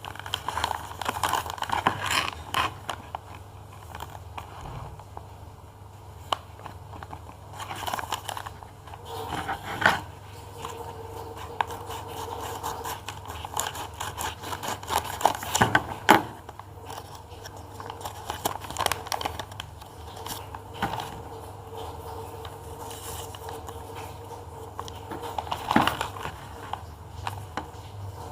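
A blind bag's wrapping being handled and opened: irregular crinkling, rustling and tearing with scattered sharp clicks and scrapes, over a steady low hum.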